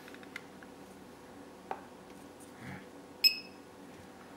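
Faint clicks of a digital function generator's front-panel buttons being pressed, then about three seconds in a single short, high electronic key-press beep from the generator.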